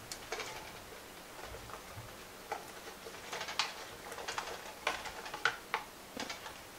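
Diced raw potatoes scooped with a serving spoon from a bowl into a stock pot: irregular light taps and clicks of the spoon against the bowl and of potato cubes dropping into the pot, coming more often in the second half.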